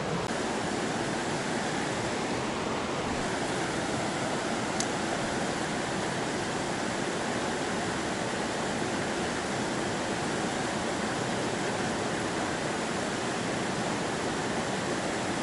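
Shallow river water rushing steadily over a rocky riffle, with one faint click about five seconds in.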